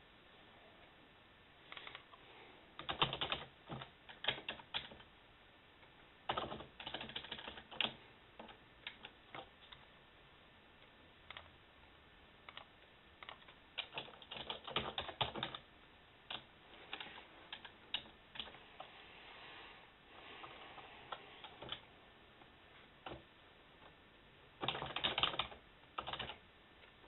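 Typing on a computer keyboard: quick runs of key clicks in bursts, broken by pauses of a few seconds.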